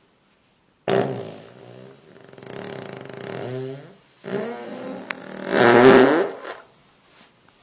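Two long farts with a wavering, buzzing pitch. The first starts sharply about a second in; the second starts about four seconds in and is loudest near its end.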